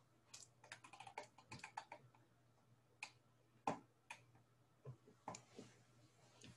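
Faint clicking on a computer's keys and mouse: a quick run of small clicks in the first two seconds, then scattered single clicks about every half second, over a faint steady low hum.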